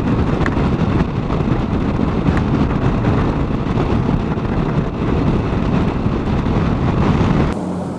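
Wind rushing over a helmet-mounted camera, mixed with the steady running of a Honda Africa Twin CRF1000L's parallel-twin engine at cruising speed. The sound cuts off abruptly near the end.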